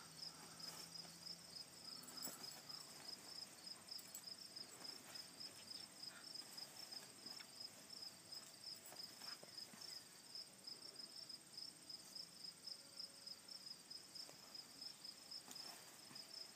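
Crickets chirping steadily, a faint high pulsed chirp about three times a second, with a few faint scattered clicks.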